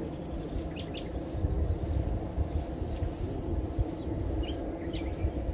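Short, scattered bird chirps over a steady low rumble.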